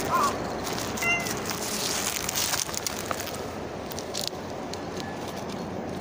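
Calico cat giving a short meow about a second in, with rustling of dry fallen leaves.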